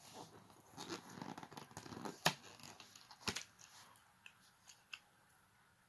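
Faint rustling and crinkling as foil trading-card booster packs are shuffled in a clear plastic blister tray, with two sharp clicks about two and three seconds in; only a few light ticks after that.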